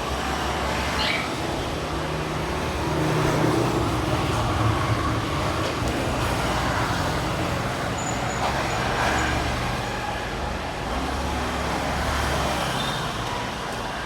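Steady road traffic noise, engines humming low under a constant wash of noise.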